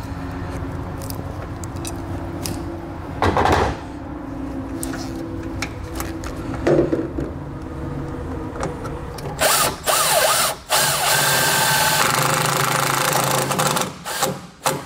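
Milwaukee M18 cordless impact driver driving a self-tapping screw through a ground wire's ring terminal into bare sheet metal. It runs in several loud bursts over the last five seconds or so. Before that there is a steady low hum and a couple of short clacks.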